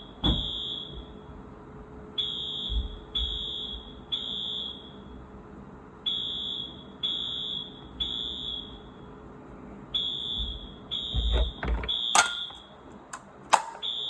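Wheelock New Series fire alarm horn sounding the temporal-three evacuation signal: a high electronic beep three times, a pause, three times again, repeating. Several sharp clicks and knocks cut in near the end.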